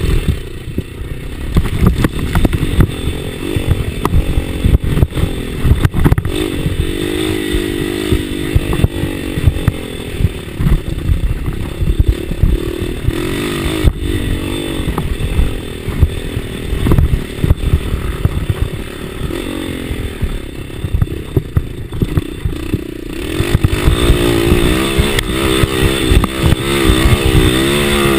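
Enduro dirt bike engine being ridden hard on a rough trail, its pitch rising and falling constantly as the throttle is worked, with low knocks and buffeting from the ride. It revs higher over the last few seconds.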